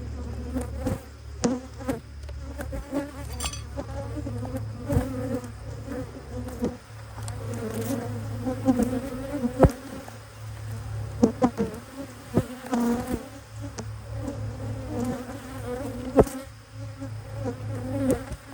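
Dense buzzing of many honeybees around an opened hive, agitated and wavering in pitch. Scattered sharp knocks and clicks run through it.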